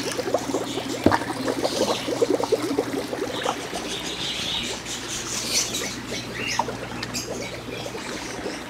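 Water splashing and pouring as a plastic basin is dipped into a tub and lifted out full, with a knock of the basin about a second in, then softer sloshing and dripping.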